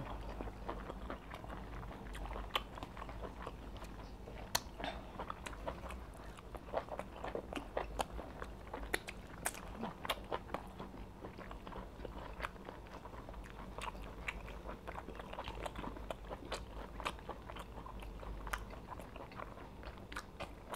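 Two people chewing and smacking their lips as they eat fufu, soup and meat with their hands, picked up close by lapel microphones: a steady run of small, irregular clicks and smacks.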